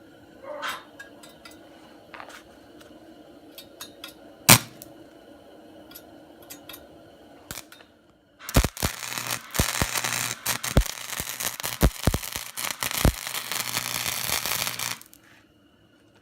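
Electric arc welder tack-welding steel bars: a loud, continuous crackle with sharp pops, starting about halfway in and cutting off abruptly about a second before the end. Before it, faint clicks of metal being handled and one sharp knock.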